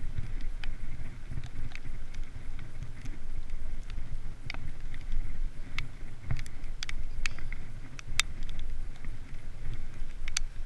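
Wind buffeting the microphone during a bicycle ride, a steady low rumble, with scattered sharp clicks and rattles throughout.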